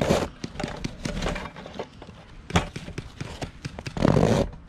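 Snow being scraped and scooped with plastic toy trucks and a toy loader, with scattered knocks and clicks. There is a louder scraping rush at the start and another about four seconds in, and a sharp knock near the middle.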